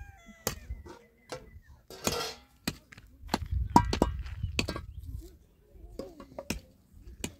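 Scattered knocks and clinks of kitchenware being handled: a plastic jug and a metal pan set on stones. There is a brief rustle about two seconds in.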